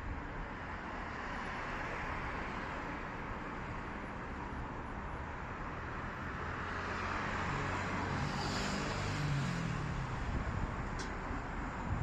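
Street traffic noise: a steady roadway hum, with a motor vehicle passing and its engine growing loudest about eight to nine seconds in.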